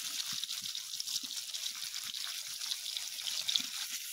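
Spice-coated fish pieces sizzling and crackling in hot oil in a metal wok, a steady hiss with many small pops; near the end a flat spatula turns the pieces in the pan.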